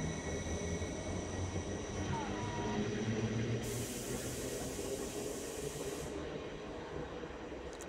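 NS ICMm (Koploper) electric intercity train pulling out past the platform: a steady rumble of the carriages' wheels on the rails with a thin high electric whine. A burst of hiss comes in around the middle and cuts off sharply about two seconds later.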